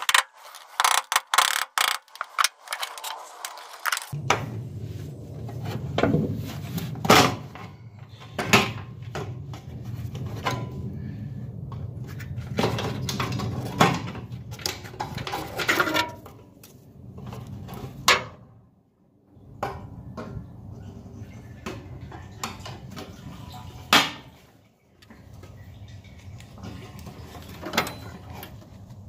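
Irregular metallic clinks, clicks and knocks of hand tools and hardware being worked on a pickup's fuel tank while its fuel sending unit is unfastened and worked loose.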